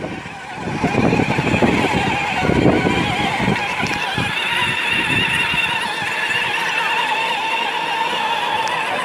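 Battery-powered ride-on toy car running, a steady whine with irregular low knocks over the first few seconds.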